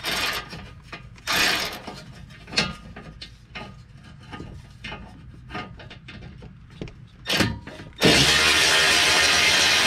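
Metal heat shielding and hand tools on a UTV's underside being worked loose: irregular clanks, rattles and scrapes. About eight seconds in, a much louder steady sound cuts in suddenly.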